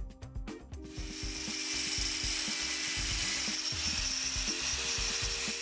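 Angle grinder with a thin cutting disc cutting through the brass sprue of a casting, a loud, steady, high-pitched hiss that starts about a second in and stops near the end: the cast figurines being cut off the pour button. Background music plays underneath.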